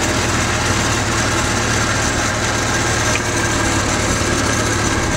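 Cub Lo Boy 154 garden tractor engine idling steadily at low throttle, running smoothly.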